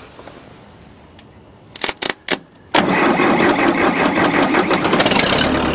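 Tractor engine cold-started after four weeks sitting, helped by a squirt of starting fluid. A few short knocks as it is cranked, then about three seconds in it catches all at once and runs steadily.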